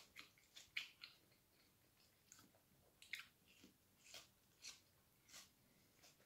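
Near silence: room tone with a few faint, short clicks scattered through it, the clearest about a second in and about three seconds in.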